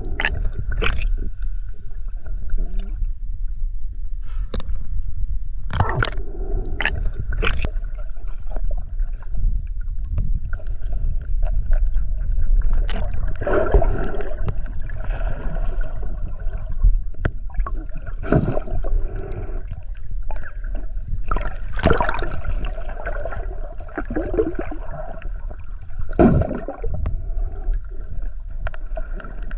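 Water sloshing and gurgling picked up by a camera at and under the sea surface, over a steady low rumble and hum, with sharp knocks every so often.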